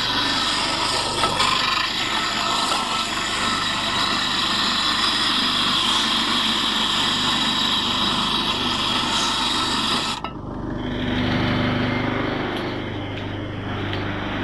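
Painted cast valve cover from a T-25 tractor engine being ground against a spinning abrasive stone, a steady grinding rasp as its warped gasket face is flattened to stop oil leaking past the gasket. The grinding cuts off abruptly about ten seconds in, giving way to a quieter, lower hum.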